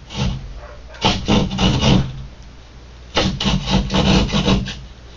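A hand saw cutting an outlet opening in drywall, in short back-and-forth strokes. There are two runs of strokes: the first about a second in, the second, quicker, about three seconds in.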